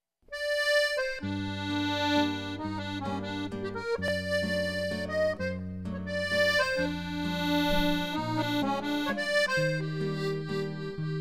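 Background music: an accordion playing a melody over sustained chords and a bass line, starting about a quarter second in.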